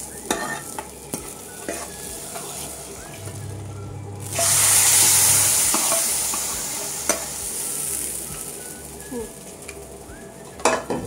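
Hot tempering oil, with fried curry leaves and chillies, poured into moong dal sambar in a clay pot. It sizzles loudly as it hits the liquid, starting suddenly about four seconds in and dying away over the next few seconds. A steel ladle scrapes and taps against the pan and pot before and after.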